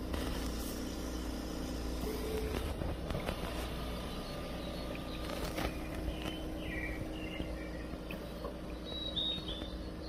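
Olive OLV-5 oxygen concentrator running, a steady compressor hum. A few short, high chirps sound over it, the last pair near the end.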